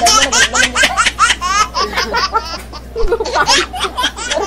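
Women laughing together hard, in quick high-pitched bursts. The laughter eases off midway and rises again near the end.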